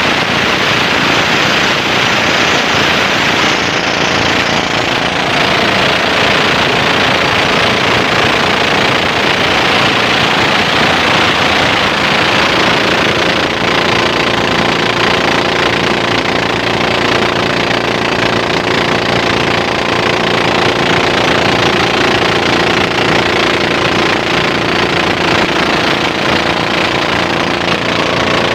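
Small inboard engine of a motorized bangka running steadily under way, driving its propeller shaft, with water rushing past the hull. The engine's tone comes through more clearly about halfway through.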